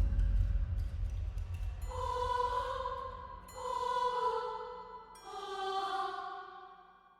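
Eerie horror sound effect: a deep low rumble fades away while three long, held tones swell and fade one after another, about a second and a half apart, dying out near the end.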